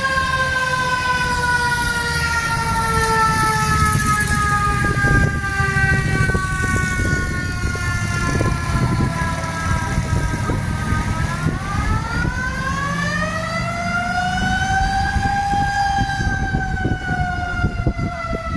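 Mechanical siren wailing. Its pitch sinks slowly for about ten seconds, rises again over the next few seconds, then levels off and slowly falls, over a low rumble of engines.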